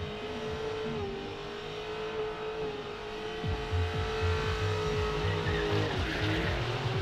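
Ford Mustang engine held at high revs while the rear tyres spin in a smoky burnout and slide, with tyre squeal. About halfway through it gets louder with a rapid low pulsing, and the revs dip briefly near the end before climbing again.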